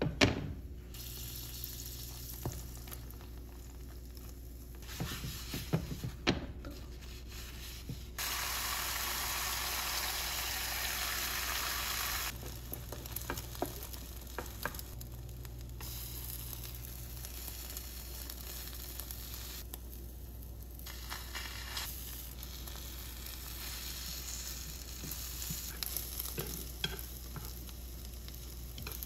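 Food frying in butter in a square nonstick pan, a steady sizzle that gets louder for a few seconds near the middle. Scattered taps of wooden chopsticks against the pan.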